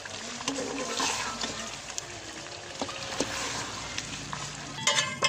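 Chicken karahi sizzling in an aluminium pot while a metal slotted spoon stirs it, with scattered clicks of metal on the pot. A few loud metal clanks come near the end.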